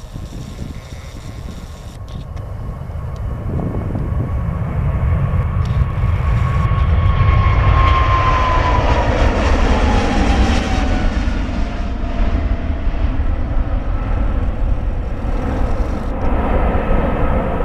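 Boeing 777-300ER's GE90 turbofans at take-off thrust passing by: the jet noise builds for several seconds and peaks about eight seconds in, and the fan whine then falls in pitch as the aircraft moves away.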